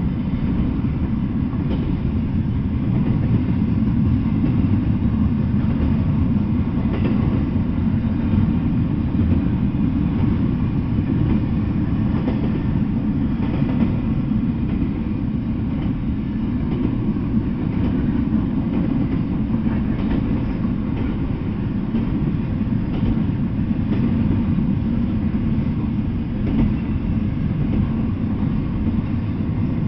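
Double-stack intermodal freight train rolling past, a steady low rumble of the cars and wheels on the rails with faint scattered clicks, heard through a trail camera's microphone.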